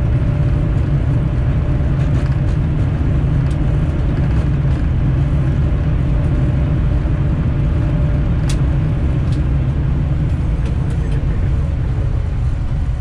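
Boeing 787 Dreamliner's flight deck during the landing rollout: a steady low rumble as the airliner rolls along the runway, with a sharp click about eight seconds in.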